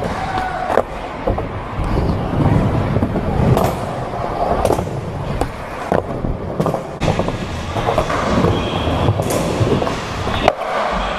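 Skateboard rolling on a ramp, its wheels rumbling, with repeated sharp clacks as the board and trucks hit and land on the ramp surface.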